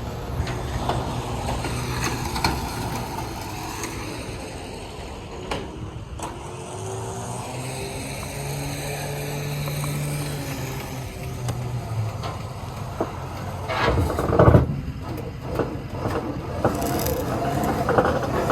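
A motor vehicle engine running steadily, its pitch drifting slightly, with a few knocks and a louder clatter near the end.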